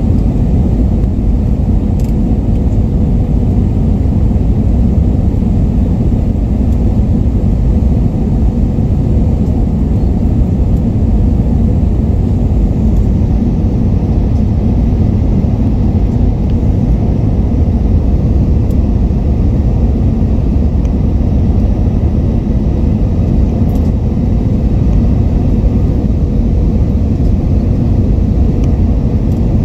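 Cabin noise of an Airbus A321neo in flight: a loud, steady rumble of engines and airflow with a faint steady hum, unchanging throughout.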